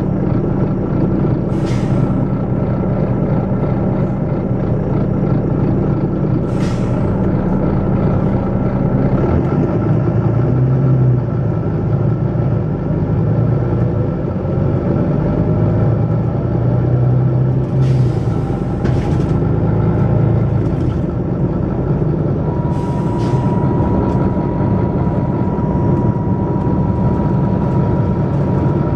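Volvo B9TL double-decker bus's 9.4-litre six-cylinder diesel engine working hard, with the bus's air system giving several short, sharp hisses. The engine note shifts about a third of the way in, and a thin steady whine joins it near the end.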